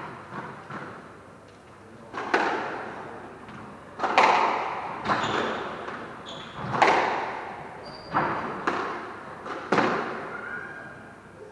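A squash rally: the ball is struck by rackets and smacks off the court walls in sharp hits about every second or two, each ringing with echo around the court. A few short squeaks of shoes on the wooden floor come between the hits.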